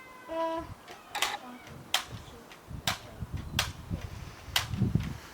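Nerf dart blaster being fired repeatedly: about five sharp clicks, roughly one a second.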